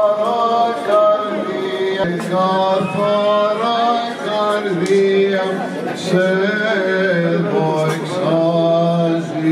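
Men chanting an Orthodox Easter hymn in Byzantine style, a slow moving melody of held notes over a steady low drone note.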